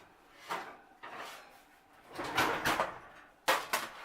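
A kitchen oven being opened and a pan of sausage and peppers taken out: several noisy scraping sounds, then two sharp clunks near the end.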